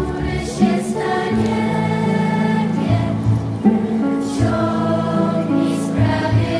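Music with a choir singing slow, held chords.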